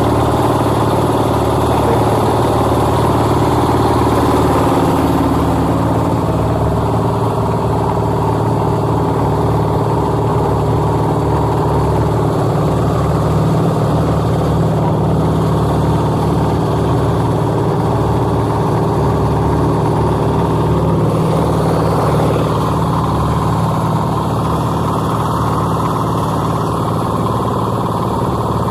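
Concrete mixer's small engine running steadily.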